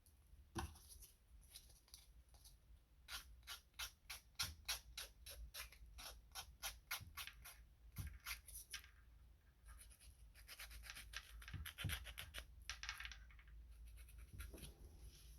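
Nail file rasping at a fingertip to take off the excess of a nail polish strip, a run of short even strokes about three or four a second, then a quicker scratching flurry near the end.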